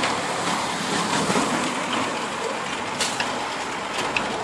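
Steady hiss of street traffic, with a few faint clicks.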